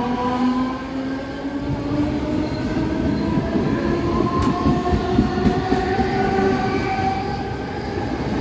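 Mumbai suburban EMU local train running past close by. Its traction motors give a whine that rises steadily in pitch as the train picks up speed, over a continuous clatter of wheels on the rails.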